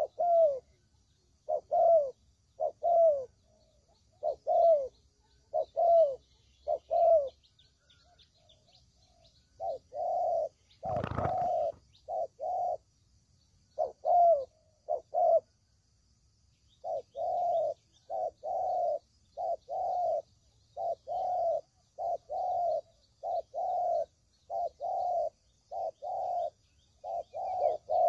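Spotted dove (tekukur) cooing: a long run of short, low coos that dip slightly in pitch, in pairs and groups, coming faster and closer together in the second half. One sharp knock sounds about eleven seconds in, and faint high chirping of small birds runs underneath.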